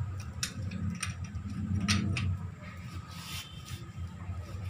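Spanner and screwdriver working a rocker-arm adjusting screw and lock nut on a diesel cylinder head while valve clearance is set: a few sharp metal clicks and a short scrape, over a steady low hum.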